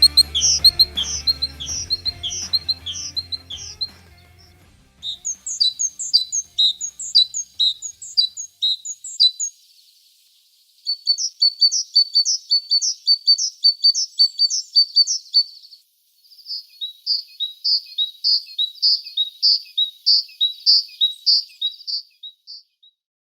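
A songbird singing three bouts of rapid, repeated high notes, separated by short pauses. Background music fades out in the first few seconds.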